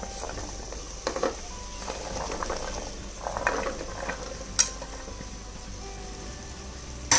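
Chopped vegetables being tipped into a pressure cooker of frying onion-tomato masala, landing in several clattering bunches over a light sizzle, with a utensil clinking sharply on the metal pot twice, about four and a half seconds in and near the end.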